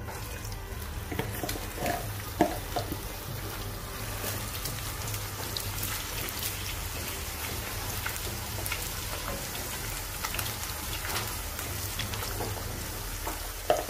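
Potato slices frying in hot oil in a frying pan: a steady sizzle with light crackling, and a few sharp clicks of a metal slotted spoon against the pan about two seconds in as slices go in.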